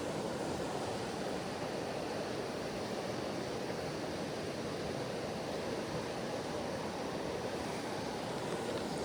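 Steady rush of a fast-flowing mountain creek.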